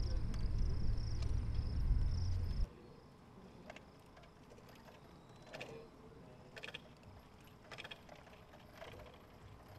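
A rolling brass collector pushed across the range pad: a low rumble with light clicking as it rolls over spent 9 mm pistol cases. The rumble cuts off abruptly about two and a half seconds in, leaving near quiet with a few faint clicks.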